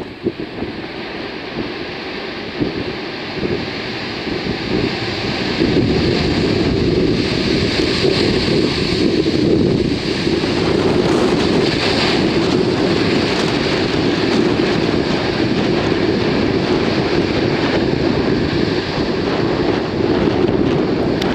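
Jet airliner on its landing approach, its engine noise building over the first few seconds and then holding loud, with a faint steady whine that fades out about halfway. Heavy wind buffets the microphone throughout.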